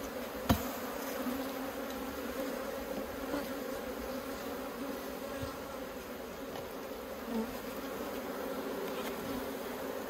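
Honeybees buzzing over an open hive box, a steady hum from the whole colony. One sharp knock about half a second in.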